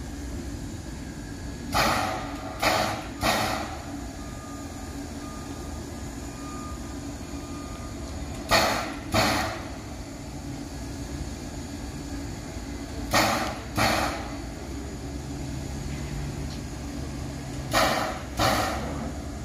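Edison #1 steam locomotive at rest with steam up, giving short hissing puffs in groups of two or three every four to five seconds over a steady low background.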